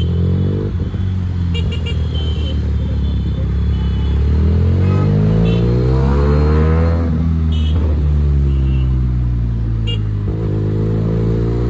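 QJ Motor SRK 400's parallel-twin engine and exhaust under way, its pitch rising as it pulls, dropping off about seven seconds in, then climbing again near the end. A few short high beeps sound over it.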